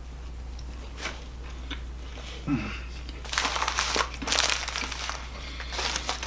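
Fast-food paper packaging crinkling and rustling as it is handled, with a few light clicks at first and dense crinkling through the second half, over a steady low hum.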